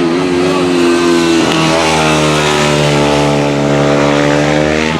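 Supermoto racing motorcycle's single-cylinder four-stroke engine running at high revs, with a brief drop in pitch about a second and a half in as it changes gear, then pulling on steadily. The sound cuts off suddenly at the end.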